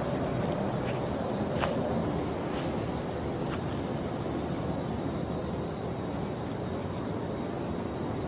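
Outdoor street ambience: a steady wash of distant traffic rumble with a thin, steady high-pitched drone over it, and a few faint ticks.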